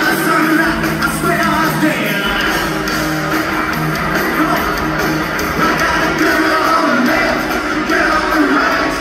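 Live rock band playing loud: electric guitars, drums and a male lead vocal, heard from the audience in a reverberant concert hall.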